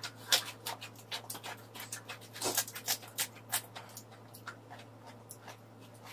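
Close-miked chewing of a lettuce wrap filled with pork trotter and blood sausage: irregular wet crunches and mouth clicks, thinning out over the last couple of seconds.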